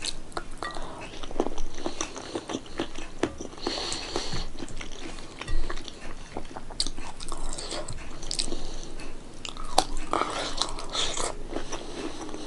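Close-up chewing and wet mouth sounds of a person eating rice and vegetables by hand, with irregular smacks and clicks.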